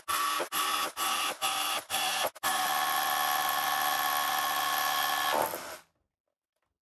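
Bosch UniversalHammer 18V cordless SDS-plus rotary hammer drilling hole after hole into concrete with a 10 mm masonry bit, played back sped up. Short bursts of hammer-drilling come about twice a second, then one steady run of about three seconds that cuts off suddenly about six seconds in.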